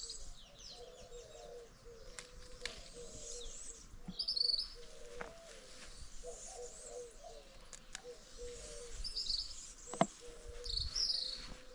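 Small birds chirping in short high bursts several times, over a lower wavering bird call that runs on underneath. A few short clicks come in between, the sharpest about ten seconds in.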